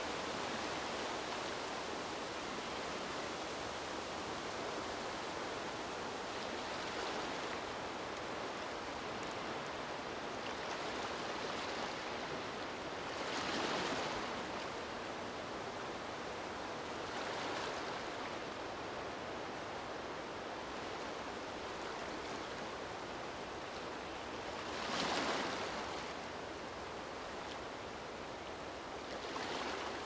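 Gentle lagoon waves washing against the shore over a steady rush, with a few brief louder swells, two of them stronger than the rest.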